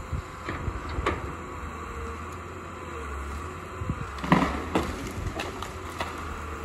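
Hyundai Robex 200 LC excavator's Cummins 6BT5.9 diesel engine running as a steady low rumble, with a faint wavering hydraulic tone, while the machine works in the trees. Several sharp knocks and cracks come through, the loudest about four seconds in.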